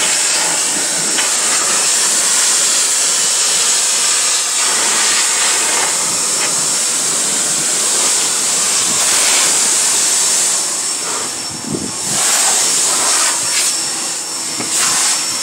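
Pressure washer spraying in a steady loud hiss, its jet striking and rinsing the rusted sheet-metal door sill and interior panels of an old car, with a few brief dips in the last few seconds as the jet moves.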